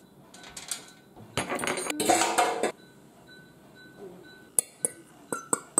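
A metal baking pan scraping and knocking against a ceramic platter for about a second, then a quick run of sharp clinks as a fork scrapes along the pan.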